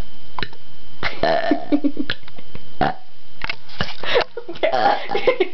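A young woman burping loudly on purpose, a forced comic burp.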